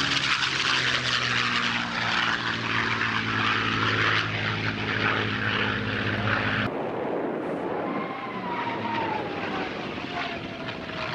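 P-51 Mustang's liquid-cooled Merlin V-12 engine droning steadily as the fighter makes a low pass. About two-thirds of the way through, the sound cuts abruptly to a rushing noise with a slowly falling whine.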